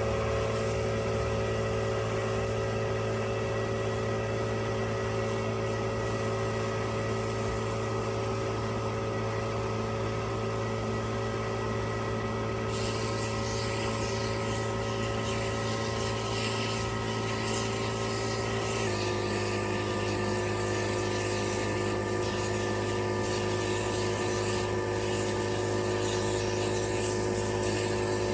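A motor-driven machine running steadily with an unchanging droning hum. Partway through, a hiss grows louder over it, and the hum shifts slightly in pitch later on.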